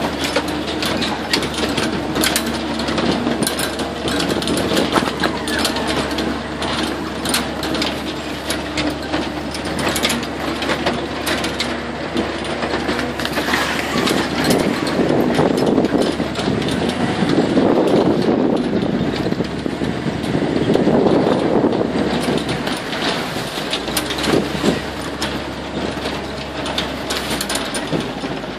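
Swamp buggy running along a bumpy dirt trail, its engine droning under a constant rattle and clatter from the open vehicle's frame; the noise swells louder a few times midway.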